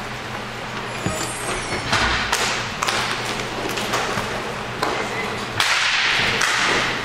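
Sharp cracks and clacks of inline hockey sticks striking the puck and the rink floor, coming irregularly from about a second in. A louder rush of noise comes a little before the end.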